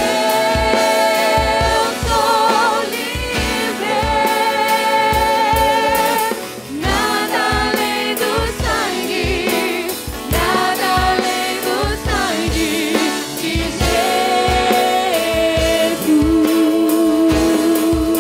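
Live church worship band: several singers singing a gospel song with long held, wavering notes, over keyboard and a steady kick-drum beat.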